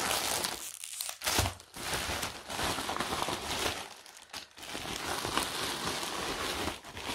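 Thin black plastic mailer bag crinkling and rustling as it is handled and pulled open, in several bursts with short pauses.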